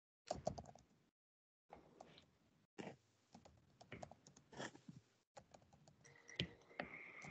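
Faint computer-keyboard typing: irregular keystroke clicks, cut by brief dropouts into silence.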